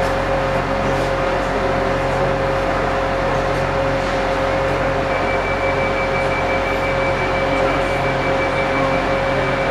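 ZSSK class 750 diesel locomotive approaching slowly, its diesel engine giving a steady drone with a steady whine on top. A thin high tone joins about halfway through.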